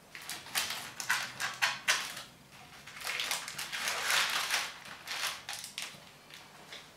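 A knife cutting through a crisp baked meringue and flaked-almond cake layer: a series of short crunching strokes, then a longer crackling cut about three to five seconds in, and a few more crunches after it.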